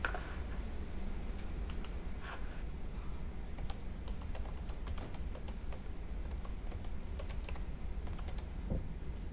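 Typing on a Logitech computer keyboard with low round keys: irregular soft key clicks over a faint steady low hum.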